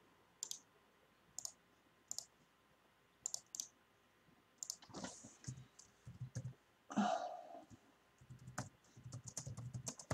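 Faint computer clicking: single clicks every second or so, a brief louder noise about seven seconds in, then a quick run of keystrokes on a keyboard near the end.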